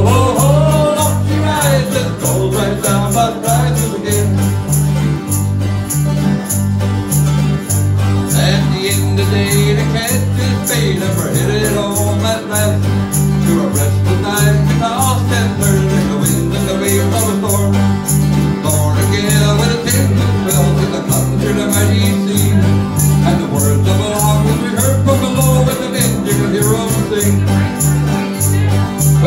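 Live folk band playing an instrumental break between verses: strummed acoustic guitars and a mandolin over a steady electric bass line.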